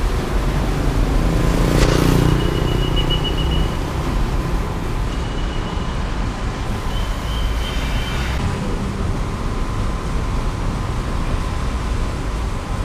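Steady road traffic noise from cars driving along a busy city street, with one vehicle passing louder about two seconds in.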